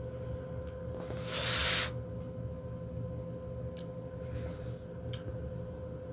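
A sleeper's soft, hissy snoring breath, about a second in and again more faintly about four seconds in, over a steady low hum.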